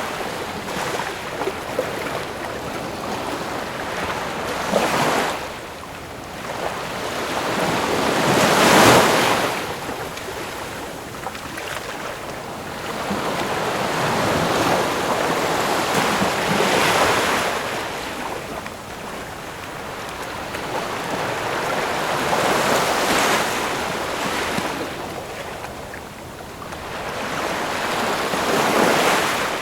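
Ocean surf: waves washing in one after another, swelling and fading every few seconds, the loudest about nine seconds in.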